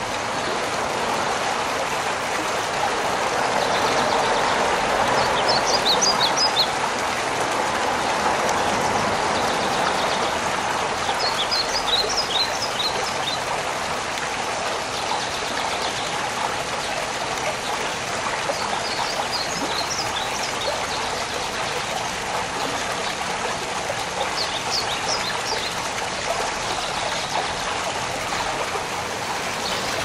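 Small garden-fountain waterfall pouring over rocks into a pond, a steady splashing rush. A bird chirps in short high clusters about five times, every five to eight seconds.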